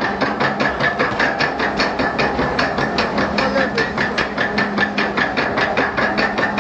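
Log flume lift mechanism clicking steadily, about seven clicks a second, over a steady motor hum as it carries the boat along.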